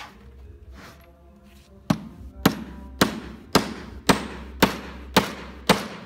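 Hammer driving nails into a wooden cabinet frame: a run of eight even, sharp blows, about two a second, starting about two seconds in.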